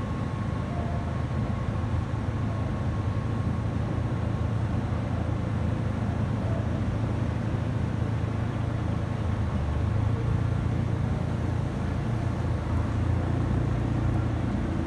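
Airbus A320-214's CFM56 jet engines heard from the ground as the airliner flies over: a steady low rumble that swells slightly about ten seconds in.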